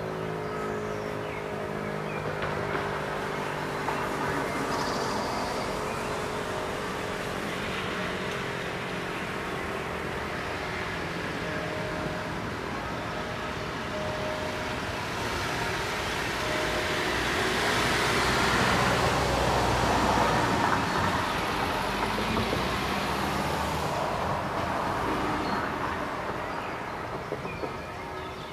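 Outdoor traffic noise, with one car passing that is loudest about two-thirds of the way through. In the first couple of seconds the old siren's falling tones fade out as it coasts down.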